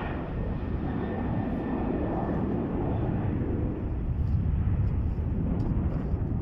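Boeing 737-800's CFM56-7B turbofan engines running up for takeoff: a steady jet rumble that grows slightly louder, with a faint high whine about a second in.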